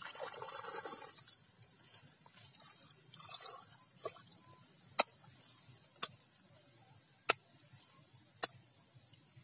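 A hand splashing in the shallow muddy water of an eel hole, then slapping the water surface in four sharp single taps about a second apart.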